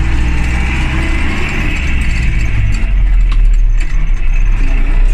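MTZ tractor's diesel engine running while the gearbox is double-clutched up into ninth gear. A light click comes about three seconds in, and after it the engine note deepens and grows a little louder. There is no gear grinding, the sign of a clean double-clutch shift.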